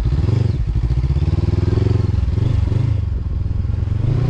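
Honda CB500X's parallel-twin engine running under load, its revs rising and falling unevenly.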